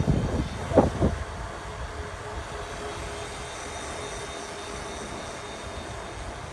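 Steady rumble of road and vehicle noise, with a couple of knocks in the first second.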